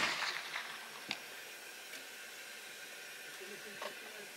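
The tail of a .45-70 Sharps single-shot rifle shot fading over about half a second in a small foam-lined shooting booth, followed by a single sharp click about a second in and a few faint clicks near the end as the rifle is handled.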